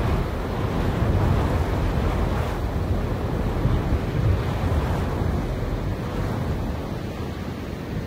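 Wind blowing through grass and trees, a steady rushing with a low rumble that swells and eases in gusts.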